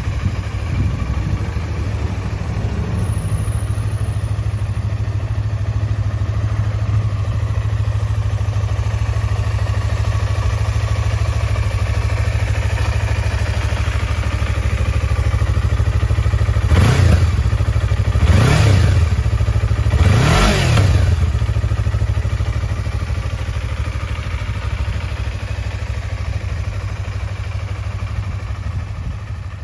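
Yamaha MT-25's 249 cc parallel-twin engine idling steadily, blipped three times quickly past the middle, each rev rising and falling back to idle.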